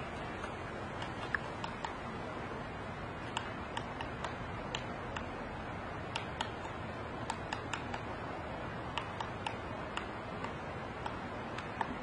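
Female pileated woodpecker pecking and chiselling into a conifer trunk while foraging: sharp, irregular taps, about two a second, over a steady background hiss.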